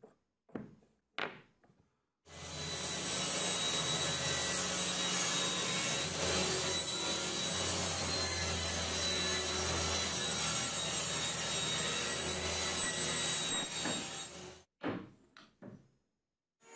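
A few light wooden knocks, then a table saw running steadily, with a constant low hum and high whine, as it rips a plywood sheet fed by a push block. The saw sound begins about two seconds in and cuts off near the end, followed by a few more short knocks.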